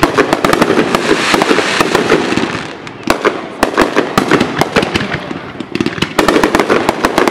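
Aerial fireworks bursting in rapid succession, with dense crackling pops. They come in thick volleys, with short lulls about three seconds in and again just before six seconds.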